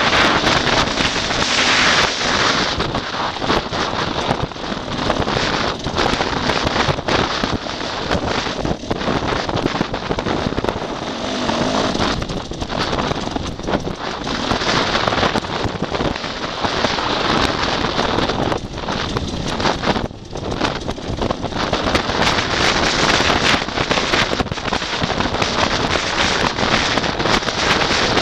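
Enduro dirt bike's engine running unevenly over rough ground, with crackling and heavy wind buffeting on the microphone.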